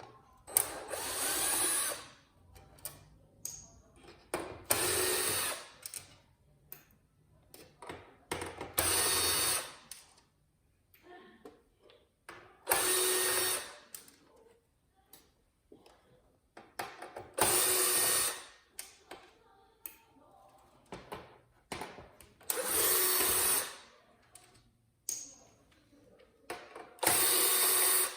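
A cordless drill backing screws out of the TV's main board, its motor running in seven short bursts of about a second each, with light clicks of screws and parts being handled in between.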